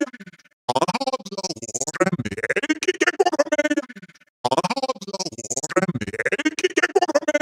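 Synthesized robotic voice, its phrases chopped into rapid stutters, with short breaks about half a second and about four seconds in.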